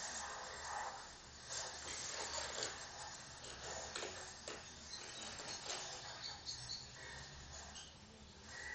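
Faint, scattered light scratches and rustles: a cat's paws and claws moving on a wooden floor as it bats at small toys, over a low steady hum.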